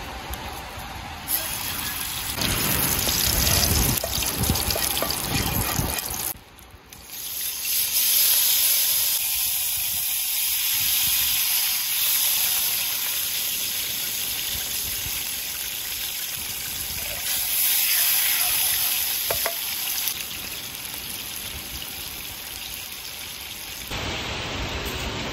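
Hot oil sizzling in a frying pan over a wood fire: a steady hiss that drops away briefly about six and a half seconds in.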